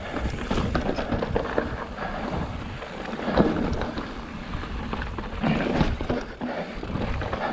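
Fezzari La Sal Peak mountain bike rolling over a rocky dirt trail: tyres crunching on gravel and rock, with the frame and drivetrain knocking and rattling over bumps. Wind buffets the microphone, with louder swells twice in the second half.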